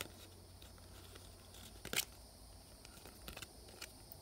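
Faint clicks and light rustling of Topps trading cards being slid and flicked through in the hand, with one sharper card snap about two seconds in.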